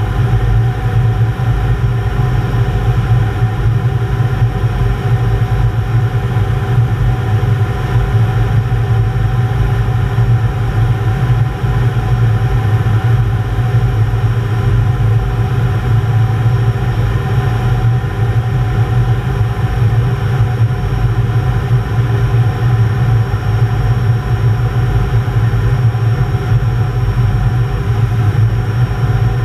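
Steady cockpit noise inside an Aero L-29 Delfin jet trainer in flight: the drone of its Motorlet M-701 turbojet and the air rushing past the canopy. A strong low hum with a few fainter steady tones above it, unchanging throughout.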